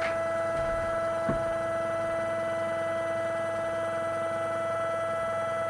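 Steady electrical whine of a DIY CNC router's stepper motors as the Z axis feeds slowly down in a G38.4 probing cycle toward a touch button. There is a click right at the start and a soft knock about a second in.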